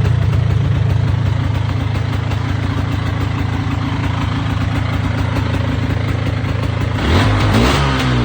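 An engine idling steadily as it warms up after a cold-weather start, with a brief rise and fall in pitch near the end.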